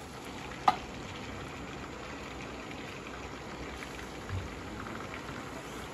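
Steady sizzle of melted butter in a small pan over a portable gas burner, as corn flour is spooned in. One sharp tap sounds about a second in.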